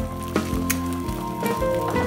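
Background music with a steady beat; eggs frying in oil sizzle faintly beneath it.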